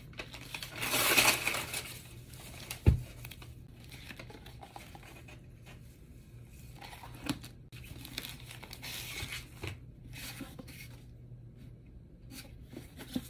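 Kraft-paper wrapping being torn and crumpled off a hardcover book, loudest about a second in, followed by a single dull thump. After that, quieter paper rustling and page handling as the hardcover is opened and turned.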